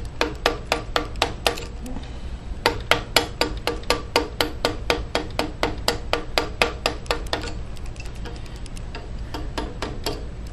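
Carving mallet tapping a wood-carving chisel into walnut: quick, light, regular strikes about three or four a second, with a short break about two seconds in. The tapping stops about three-quarters of the way through.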